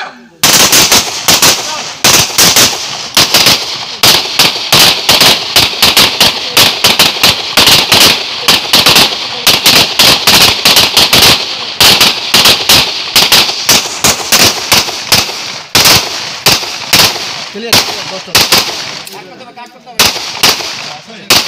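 A line of semi-automatic pistols firing at once, many shooters together: dozens of sharp, overlapping shots several a second, thinning out to scattered last shots near the end.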